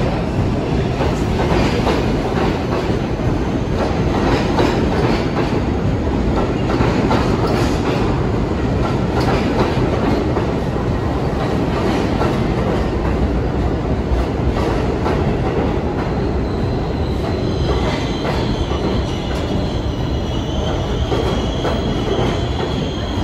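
New York City subway train running through the station, its steel wheels rumbling and clacking over the rail joints. About two-thirds of the way in, a high squeal of several steady tones comes in over the rumble.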